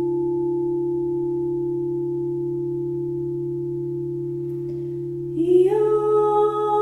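Crystal singing bowls ringing with a steady, slowly fading tone. About five seconds in, a woman's voice slides up into a held sung note over the bowls.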